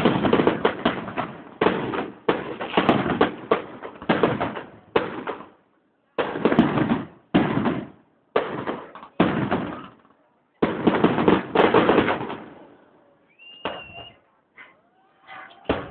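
Fireworks going off in rapid volleys of bangs and crackling, each burst a second or two long with short gaps between. After about thirteen seconds it thins out to a few fainter crackles and a brief high tone.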